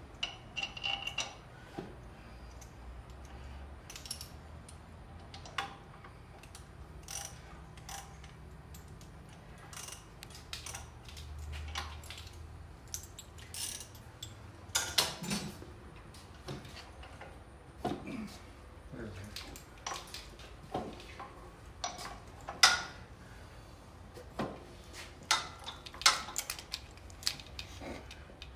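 Irregular metallic clinks, clicks and knocks of hand tools and steel motorcycle parts being handled and fitted during front-end assembly, with several sharper knocks in the second half.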